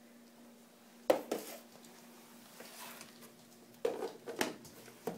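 Several sharp plastic clacks and knocks from a clear plastic food container of Cheerios being handled, about a second in and again around four seconds in, with a faint steady hum that stops about four seconds in.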